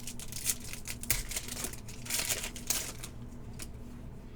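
Football trading cards and their plastic packaging being handled: irregular crinkling and sliding rustles in several short runs, over a faint steady hum.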